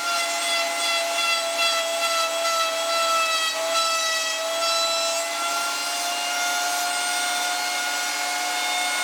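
Router in a router table running at full speed with a steady high-pitched whine, a round-over bit cutting into the end of a wooden rod, its pitch wavering slightly under load.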